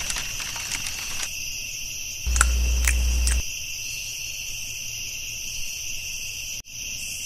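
Crickets chirping in a steady night-time chorus. A couple of sharp campfire crackles come about two and a half and three seconds in.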